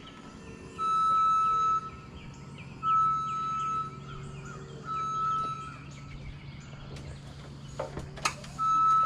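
A machine's warning beeper sounding long single-pitched beeps, each about a second long and roughly two seconds apart, with a longer pause before the last one. Under it runs a steady low hum, with birds chirping and a couple of sharp clicks shortly before the last beep.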